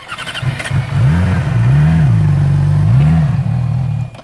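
Sport motorcycle engine being revved, its pitch rising and falling about three times in quick throttle blips over a steady run.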